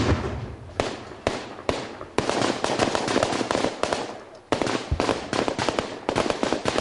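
Gunfire: a loud shot at the very start, a few single shots, then long bursts of rapid automatic rifle fire from about two seconds in, broken by a short pause about four seconds in.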